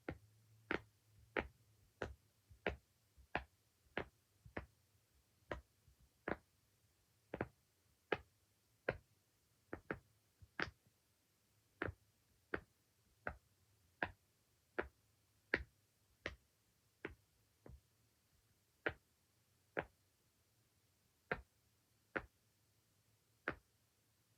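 Silicone pop-it fidget toy being pressed bubble by bubble: sharp single pops at an unhurried, fairly even pace of a little more than one a second, with a quick double pop about ten seconds in.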